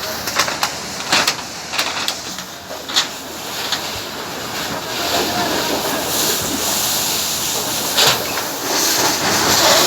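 Steady rushing hiss of fire-fighting at a house fire, growing louder about five seconds in and again near the end, with a few sharp knocks and clatter in the first three seconds.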